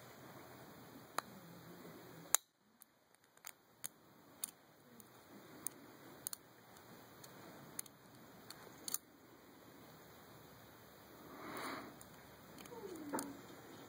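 Lock pick and tension wrench working the pin stack of a Chateau padlock during single-pin picking: faint, scattered small metallic clicks and ticks, the sharpest about two seconds in. A short falling squeak comes near the end.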